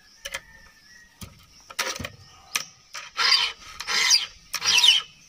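Round file rasping across the cutters of a chainsaw chain during hand sharpening: three strong strokes in the second half, about 0.7 s apart, after a few light clicks of the file against the chain.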